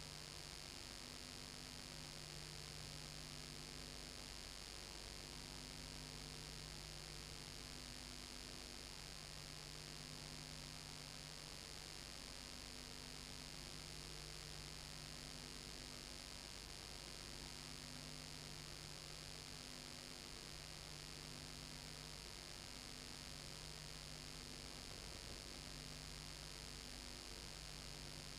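Steady low electrical mains hum with faint hiss, with faint low tones pulsing on and off; nothing of the filmed scenes is heard.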